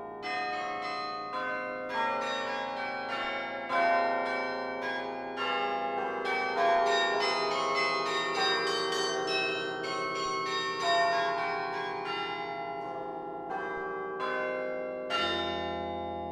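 Bronze bells of the Laura Spelman Rockefeller Memorial Carillon, struck from its baton keyboard: a quick run of single notes and chords, each ringing on into the next, ending about fifteen seconds in with a deep closing chord left to ring out.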